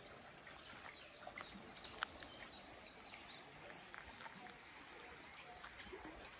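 Faint chirping of small birds, many short high calls scattered throughout, with a single sharp click about two seconds in.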